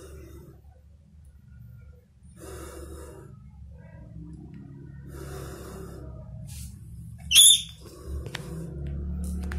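Several soft breathy hisses under a second each, then one loud, very high, sharp squeak about seven seconds in, typical of a rat cornered by a kitten, over a low steady hum.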